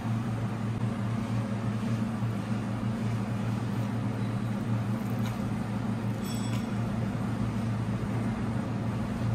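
A steady low hum, with a couple of faint brief clinks about five and six seconds in.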